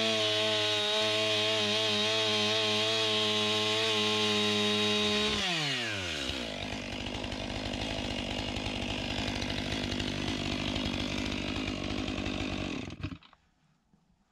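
Stihl 500i two-stroke chainsaw running at full throttle, then the throttle is let off about five seconds in and the pitch drops quickly to a lower, rattling idle. The engine cuts off abruptly near the end.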